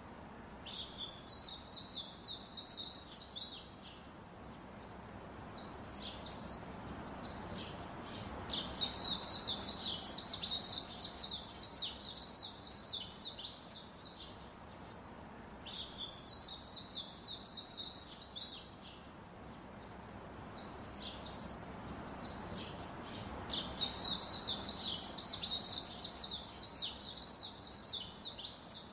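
Small birds chirping in rapid, high-pitched runs, in several bursts of a few seconds each, over a steady background hiss.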